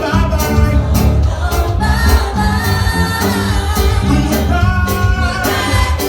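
Gospel song with singing over a band: a strong bass line and a steady drum beat.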